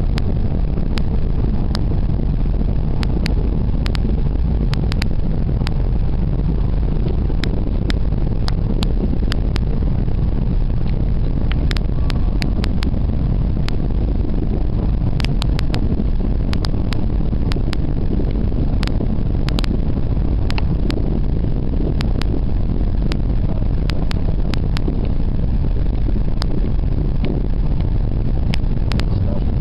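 Steady low rumble of a car driving, engine and road noise, with scattered sharp clicks throughout.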